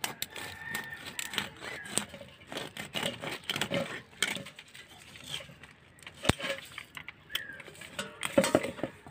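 A whole pangasius catfish being cut up against a blade: irregular scraping, crackling and snapping as fins, skin and flesh are cut. There is a sharp crack about six seconds in, and a louder run of cutting near the end.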